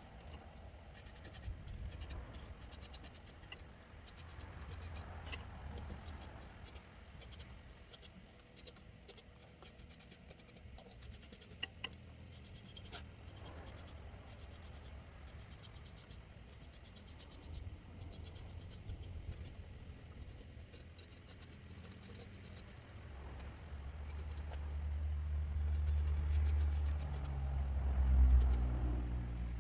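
Light scratching and rubbing on the walnut piece, with scattered small ticks. A low hum runs underneath and swells louder over the last few seconds.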